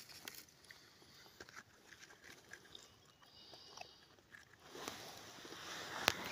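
Faint rustling and crackling of leaf litter and twigs on a forest floor, with small scattered clicks, swelling about five seconds in, and a sharp snap near the end.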